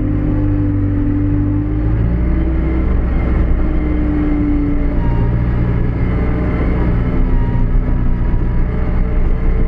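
New Holland B95B backhoe loader's diesel engine running steadily as the machine drives, heard from the operator's seat. The engine note drops slightly about two seconds in and rises again about five seconds in.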